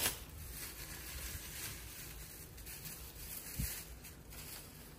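Soft rubbing and rustling of shopping bags and packaging being handled close to the microphone.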